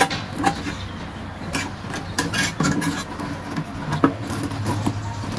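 Plastic fuel pump assembly of a Honda Wave 125i being handled and seated into the fuel tank opening: scattered short clicks and knocks of plastic on the tank, with some rubbing, over a low steady hum.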